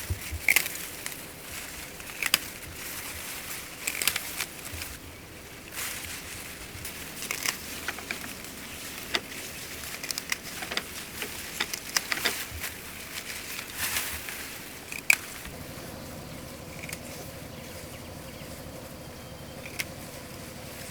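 Irregular crackling and rustling with many sharp clicks and snips; about 15 seconds in, this gives way to a steady low hum.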